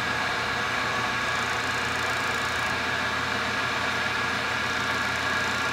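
Milling machine running with an end mill cutting into a metal part held in a four-jaw chuck: a steady, loud machining noise.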